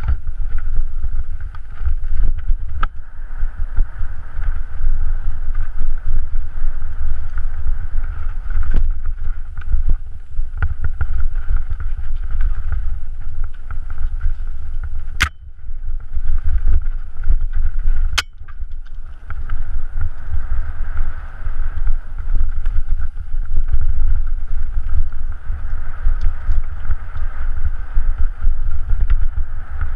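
Mountain bike descending loose gravel singletrack at speed: heavy wind buffeting on the camera microphone over a steady rattle and crunch of tyres and bike on the stones, with scattered clicks and two sharp knocks a few seconds apart about halfway.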